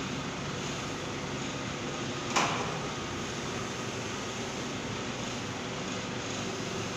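Forklift engine running steadily at idle, with a single sharp knock about two and a half seconds in.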